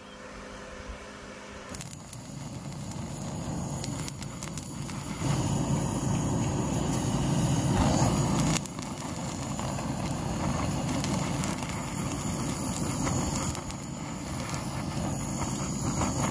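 Small stainless-steel wood-burning camp stove burning under a sausage on a wire grill: a low rushing fire with scattered crackles and pops. It grows louder over the first several seconds and dips suddenly about halfway through.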